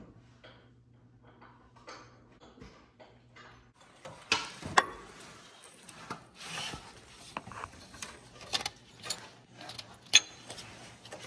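A low steady hum at first. From about four seconds in come irregular rustling and scraping with a few sharp knocks: handling and work noise under a truck's engine bay.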